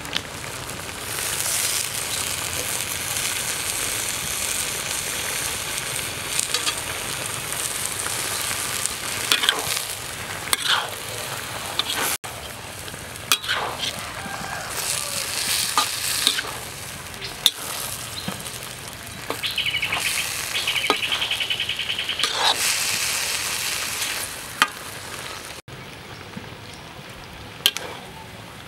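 Stingray pieces and leafy greens sizzling in a wok, stirred with a spatula that scrapes and knocks against the pan now and then. The sizzle is quieter in the last few seconds.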